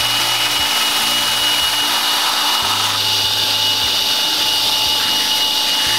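Cordless drill running steadily with a high whine, spinning an engine valve while an 80-grit sanding strip is held against it, scraping carbon deposits off the valve's surface.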